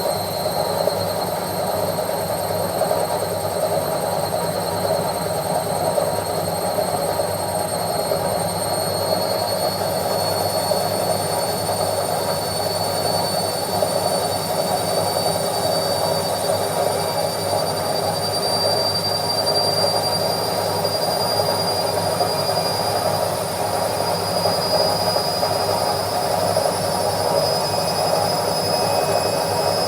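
Washing machine on its spin cycle: a steady rushing drum noise with a high motor whine that slowly rises in pitch as the drum speeds up.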